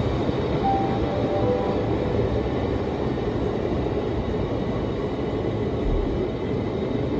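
Steady low rumble of a train at a station platform, with a few faint short tones about a second in.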